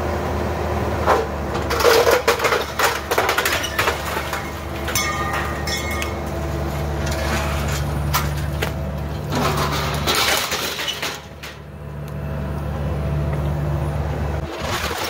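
Cat 304E mini excavator's diesel engine running steadily under load while its bucket tears into a wooden building: repeated cracking and splintering of boards and crashes of falling debris. The engine note changes briefly about two-thirds of the way through, and the sound dips, before the machine works on.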